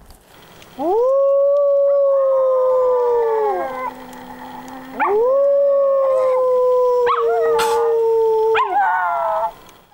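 A man and his dogs howling together like wolves: two long howls, each rising at the start, held about three seconds and falling away, with a second voice joining in and several voices wavering together near the end.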